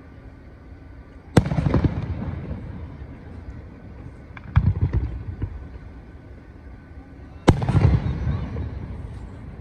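Fireworks bursting: three bangs about three seconds apart, each trailing off over a second or so.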